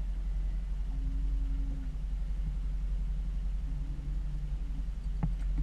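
Small outboard motor running steadily at low speed, a low rumble with a faint hum over it. A single sharp click sounds near the end.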